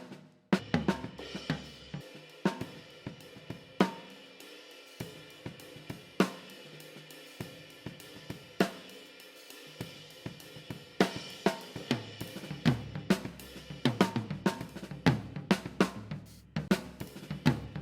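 Recorded acoustic drum kit playing: kick, snare, hi-hat and cymbals. The hits are sparse and evenly spaced through the middle and grow busy near the end, with a brief gap just after the start.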